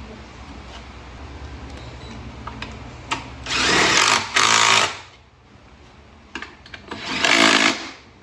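Yamaha YZ450 dirt bike's single-cylinder four-stroke engine idling, then revved hard twice, each rev lasting about a second. The bike is running again after its clogged pilot jet was cleared to cure hard starting.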